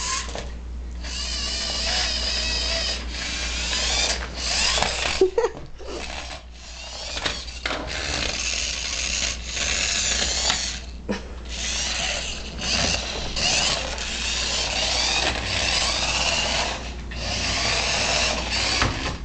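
Toy radio-controlled car's small electric motor and gears whirring in repeated runs of a second or few, stopping and starting, the whine sliding up and down in pitch as the car speeds up and slows.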